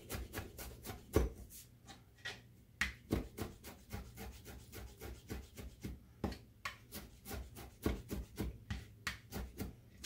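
Chef's knife chopping fresh dill on a plastic cutting board: a quick, uneven run of blade taps, about four or five a second.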